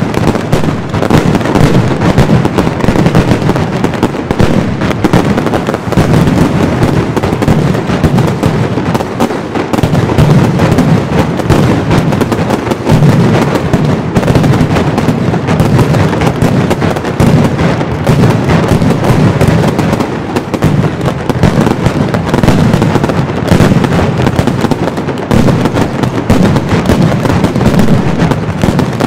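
Mascletà firework barrage: firecrackers and salute bombs going off so densely that the bangs overlap into one continuous, very loud rumble with no pauses.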